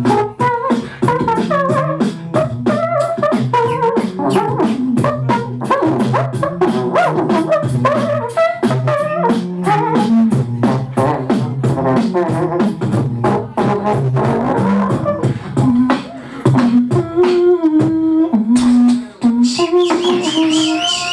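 Beatboxing: fast vocal drum hits, kicks, snares and clicks, laid under hummed and sung pitched lines that bend and shift, in a jazz-style freestyle jam. Near the end the pitched lines turn into steadier held notes.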